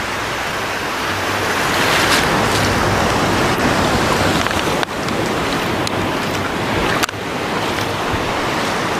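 Steady sea surf: small waves breaking and washing over a shallow sandy beach, with two brief dips about five and seven seconds in.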